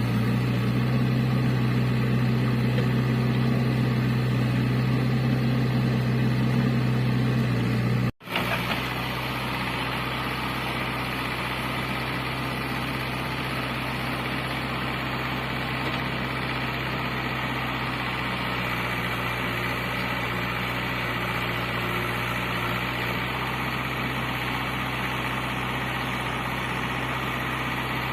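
JCB 3DX backhoe loader's diesel engine running steadily with a deep, even hum. About eight seconds in the sound cuts out for an instant, and the engine then goes on steadily with less low hum and more hiss.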